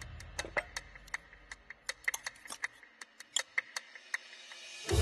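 Cutlery clinking and tapping on plates: light, irregular clicks, some with a short metallic ring.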